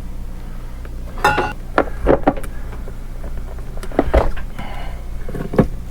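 Scattered knocks and clatters of metal mounting hardware and tools being handled. One clank about a second in rings briefly, and a steady low hum runs underneath.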